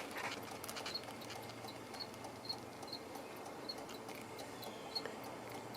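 Cricket chirping faintly, short high chirps about twice a second, over a low steady hum and a few light scattered clicks.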